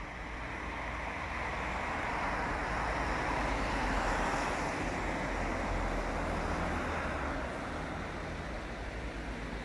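Road traffic: a car passes close by, its tyre and engine noise swelling to a peak about four seconds in and then fading, over a steady low traffic rumble.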